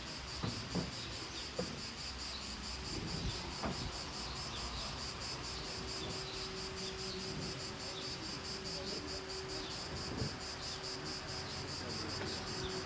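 Insects trilling steadily in a fast, even, high-pitched pulse, with a few soft knocks here and there.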